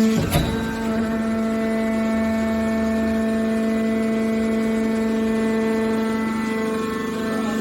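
Hydraulic metal baler's power unit running with a steady hum, with a single clank about a third of a second in.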